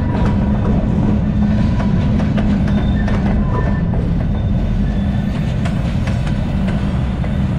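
Canadian Pacific covered hopper freight cars rolling past close by: a steady rumble of steel wheels on the rails, with scattered clicks as the wheels pass over rail joints.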